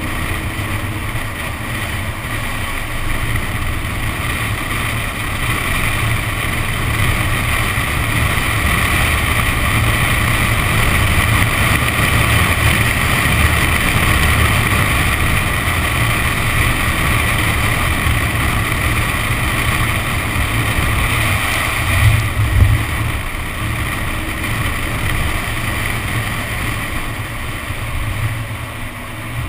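Wind rushing and buffeting over a microphone mounted outside a Nissan 370Z, with tyres hissing through standing water on a wet track. The noise swells towards the middle. A couple of sharp thumps come about three-quarters of the way through.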